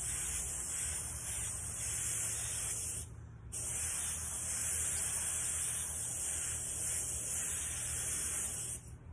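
Airbrush spraying black paint onto a canvas: a steady hiss of air that breaks off for about half a second around three seconds in, resumes, and stops near the end.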